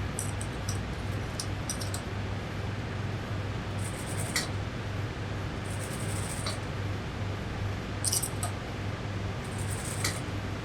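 Hand spray bottle squirting water onto mink pelt leather to dampen it, in short hissing sprays with trigger clicks about every two seconds. A steady low electrical hum runs underneath.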